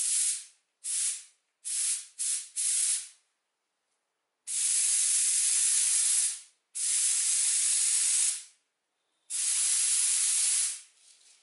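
Gravity-feed compressed-air spray gun spraying primer in test passes onto paper. Its hiss comes in about five short trigger pulls, then three longer passes of about two seconds each.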